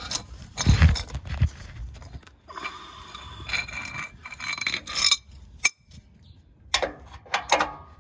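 Hand tools scraping, rubbing and clinking against metal under a car, with some metallic ringing through the middle and a sharp click later on.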